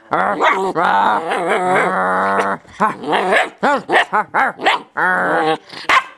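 German Shepherd puppy barking and growling: a long drawn-out growl-bark lasting about two and a half seconds, then a quick run of short, high barks, with a couple more near the end.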